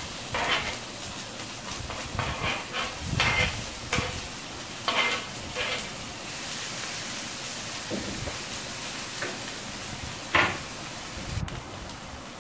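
Chopped onion, capsicum and green chillies sizzling in hot oil in a non-stick pan, while a wooden spatula scrapes them off a cutting board and stirs them, with scattered scrapes and knocks over the steady hiss.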